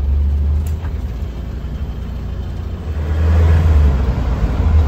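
Engine and road noise heard from inside an open-sided taxi on the move: a steady low rumble with a rushing noise over it, growing louder about three seconds in.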